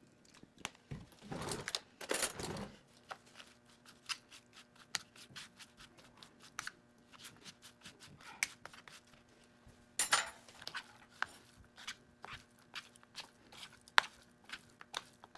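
A fork clicking and scraping irregularly against a plate as raw beef strips are tossed in soy sauce, with a louder clatter about ten seconds in. Near the end the meat is worked by hand, with a sharp click about fourteen seconds in.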